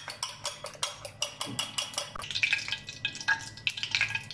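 Fork whisking beaten eggs in a bowl, clicking rapidly against the bowl at about six clicks a second. About two seconds in this gives way to a softer crackling hiss of oil heating in the frying pan.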